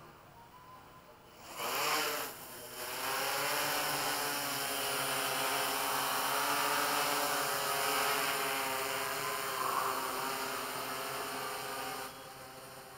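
Yuneec Q500 quadcopter's electric rotors spinning up for take-off about a second and a half in, rising in pitch, dipping briefly, then settling into a steady multi-tone whine as it lifts off and hovers. The whine drops sharply in level near the end as the drone climbs away.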